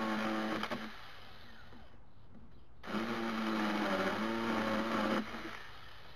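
A 42 V cordless mini chainsaw's electric motor and chain running in two bursts as it cuts garden stems. The first burst stops about a second in; the second starts about three seconds in and runs for a little over two seconds.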